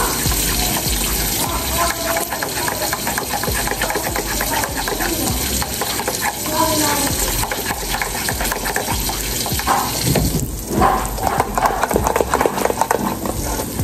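Pancake batter sizzling and crackling on a flat griddle, with faint voices in the background. Near the end, more batter is poured onto the griddle from a stainless saucepan.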